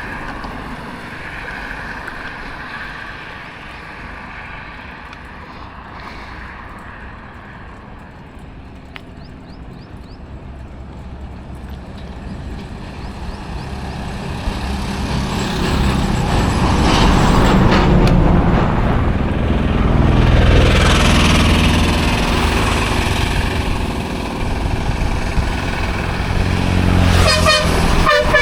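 Highway traffic passing: engine and tyre noise builds as a vehicle approaches, is loudest about two-thirds of the way through as it goes by, and eases off. A short vehicle horn toot sounds near the end.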